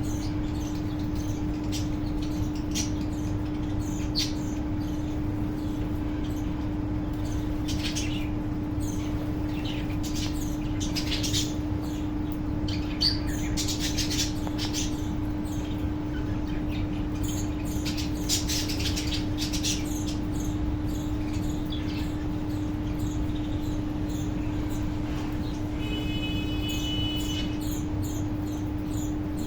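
A colony of cockatiels and budgerigars chirping, with many short high calls scattered irregularly and a short held whistle near the end, over a steady low hum.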